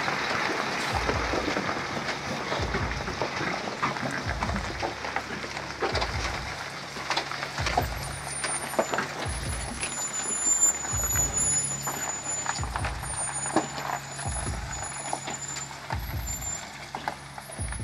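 Heavy logging truck running, with a steady low engine hum, low rumbles coming and going every second or two, and scattered knocks and rattles.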